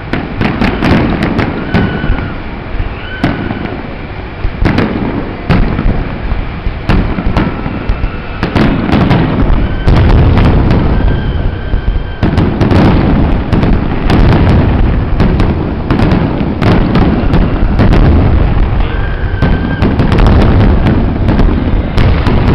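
Fireworks display: aerial shells bursting in rapid, overlapping bangs over continuous crackling. Short, steady high tones sound now and then among the bursts.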